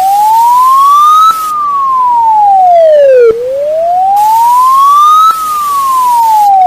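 Wailing alarm siren of an emergency alert: a single tone that slowly rises and falls, each climb and each fall taking about two seconds, over a steady hiss.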